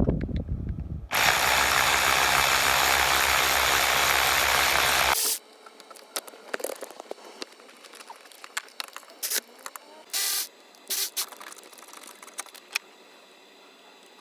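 Ratchet undoing the alternator mounting bolts: a loud, steady run of rapid clicking for about four seconds that stops abruptly, followed by scattered lighter clicks and taps of tools on metal.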